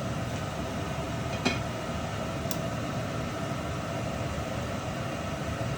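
Steady ventilation hum, with a light click about one and a half seconds in and a fainter tick a second later.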